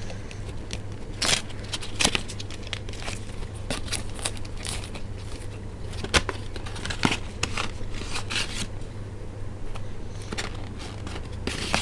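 Screen protector kit's plastic and cardboard packaging being handled and opened: irregular clicks and crackles over a steady low hum.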